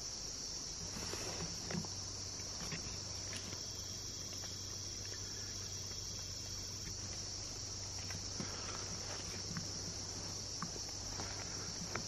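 A steady, high-pitched chorus of insects buzzing in summer woodland. Over it come scattered soft rustles and crunches of footsteps in dry leaf litter, more frequent near the end.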